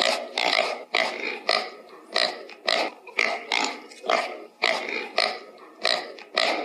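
Pig calling in short, repeated calls, about two a second.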